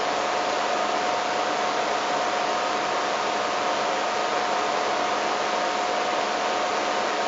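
Steady hiss with a faint constant tone running through it, with no distinct events.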